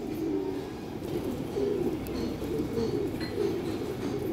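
Domestic pigeons cooing, with repeated low coos overlapping one another.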